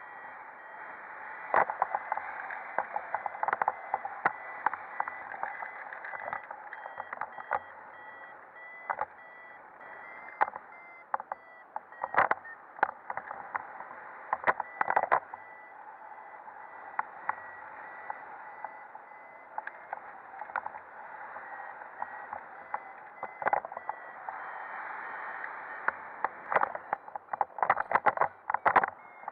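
Rushing airflow noise on a camera carried in paraglider flight, with many sharp knocks that come thickest near the start and near the end. A thin, steady high tone breaks into beeps over it.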